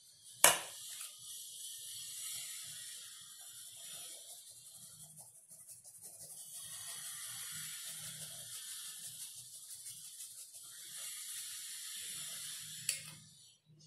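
Steamed wheat flour being sifted through a small plastic hand strainer into a glass bowl: a steady scratchy hiss as the flour is shaken and rubbed through the mesh. A sharp tap about half a second in, and a smaller one near the end.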